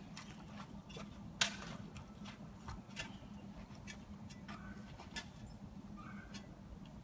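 Scattered sharp crunches and clicks of ice, the loudest about a second and a half in.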